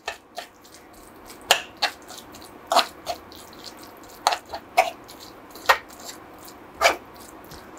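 Steel spoon stirring a wet onion-tomato masala in a metal kadai: about a dozen irregular clinks and scrapes of the spoon against the pan, roughly one every half second to a second.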